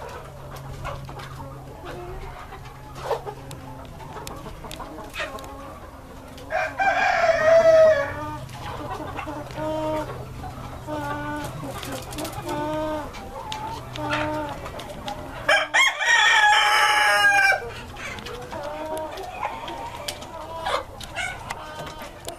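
A flock of Light Brahma chickens clucking, with a rooster crowing twice, about six seconds in and again near sixteen seconds; the second crow is the loudest. Between the crows a bird gives short clucks about once a second, over a faint steady low hum.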